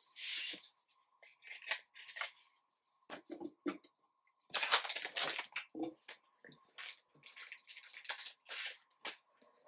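Trading cards being handled: a string of short papery rustles, slides and light taps as cards are shuffled through and laid on a wooden table, with a louder spell of rustling about halfway through.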